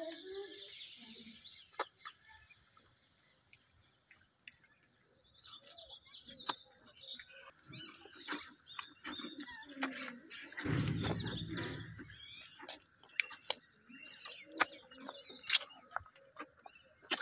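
Small birds chirping and twittering in quick, scattered calls, with many sharp clicks from a calf suckling at a cow's udder. A brief low rumble comes about eleven seconds in.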